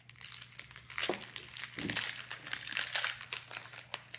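Foil wrapper of a Pokémon booster pack crinkling and rustling as it is handled and opened and the cards are pulled out, busiest from about a second in.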